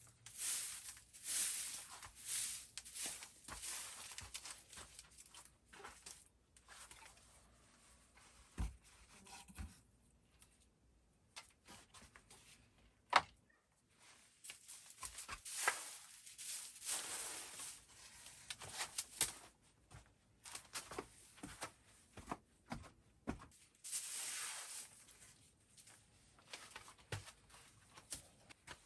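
Irregular rustling, rubbing and scraping from things being handled, broken up by short clicks and knocks; one sharp click about 13 seconds in is the loudest.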